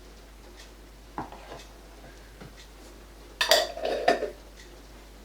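Kitchen utensils knocking and clattering: a single knock about a second in, then a short burst of clinks and clatter, the loudest sound, about three and a half seconds in, like a spoon against a dish.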